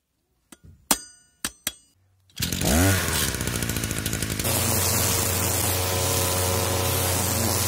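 A few sharp metallic clinks from hand tools on the trimmer's clutch, then a two-stroke petrol string trimmer (UBT-5700 brush cutter) starts about two seconds in and revs up with a rising pitch. From about halfway it runs at high speed, cutting grass with its line head, and it cuts off suddenly at the end.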